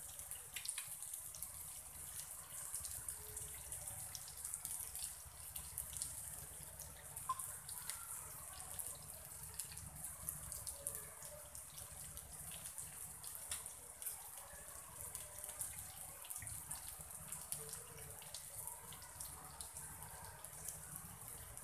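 Surmai (seer fish) slices shallow-frying in oil on a flat tawa: a faint steady sizzle with scattered small crackles.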